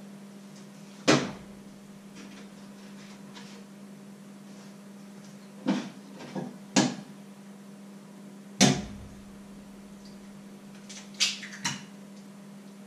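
Kitchenware being handled at the counter: a handful of short, sharp knocks and clinks spaced a few seconds apart, two of them close together near the end, over a steady low hum.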